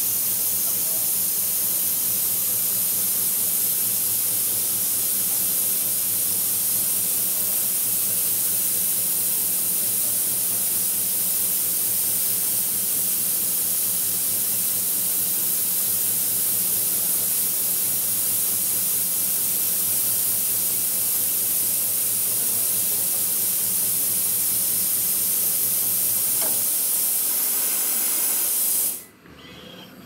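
Snap-ring deburring machine running, an abrasive bar grinding the slotted rim of a spinning metal drum: a steady high hiss over a low motor hum. It cuts off suddenly near the end.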